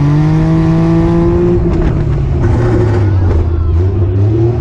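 Daihatsu Mira rollover car's engine, heard onboard, revving up for about a second and a half. The note then drops back and turns rough and noisy, and it climbs again near the end.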